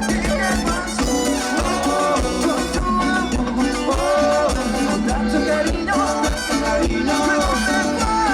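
A live Latin tropical dance band playing an instrumental passage, with melody instruments over steady percussion and maracas.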